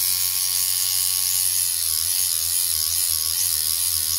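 Dan Kubin DMC 2.0 rotary tattoo machine running at 6 volts: a steady, even motor buzz from the needle stroke, its pitch wavering a little in the second half. It is wired positive up, which gives a very sharp, hard hit.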